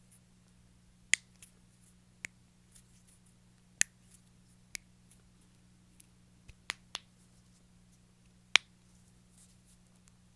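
Joints cracking: about a dozen sharp pops at irregular intervals, three of them much louder than the others.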